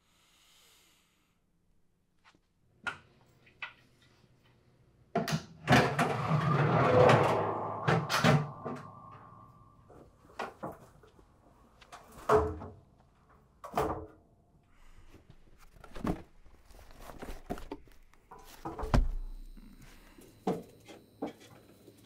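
Pull-down attic hatch opened, with a long creaking scrape as its folding wooden ladder swings down and unfolds, followed by a series of separate wooden knocks and clacks and a heavy low thump near the end.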